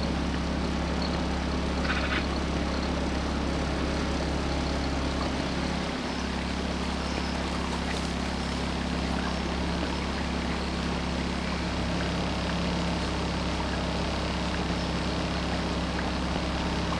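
Outboard motor of a small cabin cruiser running steadily under way, an even low hum that does not change in pitch or level.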